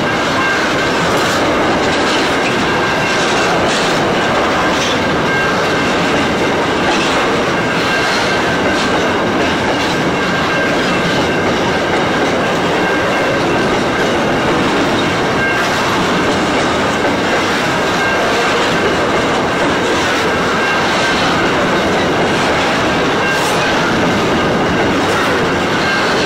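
Aurizon grain train hopper wagons rolling past at close range: a steady rumble of steel wheels on the rails, with repeated clickety-clack as the wheelsets cross rail joints. A thin, steady high tone runs over it.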